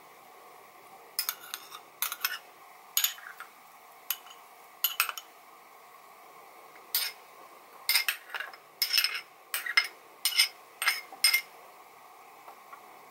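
Ceramic bowls clinking as small bowls are tipped and tapped against the rim of a larger ceramic bowl: about twenty short, sharp clinks in small clusters.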